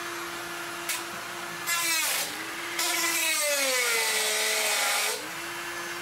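Flex-shaft rotary tool with a cut-off wheel whining steadily, then grinding into the computer case's sheet-metal panel twice: a short cut about two seconds in and a longer one of about two and a half seconds. During the cuts the whine drops in pitch as the wheel loads up.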